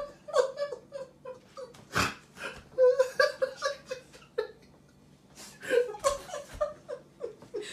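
A person laughing in short spells of quick repeated syllables, with a sharp knock about two seconds in.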